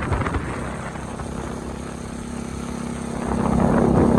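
Motorcycle engine running with a steady hum, getting louder about three seconds in.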